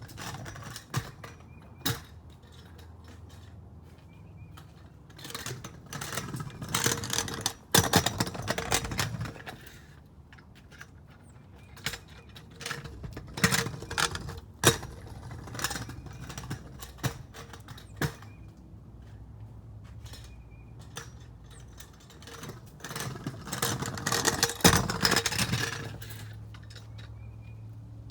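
Stunt scooter clattering as it is ridden: irregular sharp knocks and metal rattles in several spells, loudest about eight seconds in and again near the end.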